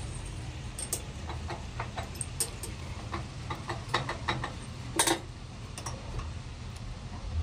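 Irregular metallic clicks and knocks of a steel chuck key and jaws on a lathe chuck as a workpiece is turned and clamped by hand, the loudest about five seconds in, over a low steady hum.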